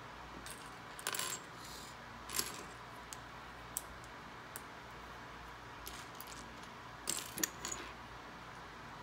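Loose plastic Lego pieces clicking and rattling as they are picked from a pile and fitted together: scattered sharp clicks, with a busier cluster of clicks near the end.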